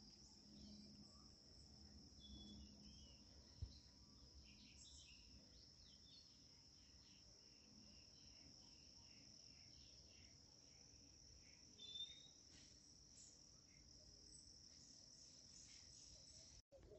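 Faint, steady high-pitched insect trill, with scattered short chirps and a single sharp click about three and a half seconds in.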